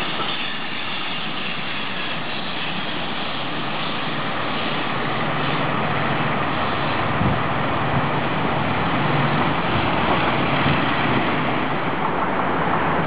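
Container freight train rolling past: a steady rush of wagon wheels on the rails, growing louder about halfway through.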